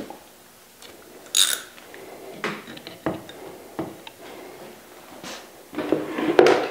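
Scattered metal clicks and knocks of a 10 mm socket wrench turning the oil drain plug back into an air compressor's pump crankcase, then the wrench laid on the workbench. The clicks and knocks come louder and closer together near the end.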